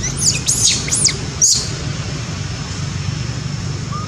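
Five or six quick, high-pitched chirping calls, each sweeping up and down, in the first second and a half, over a steady low rumble.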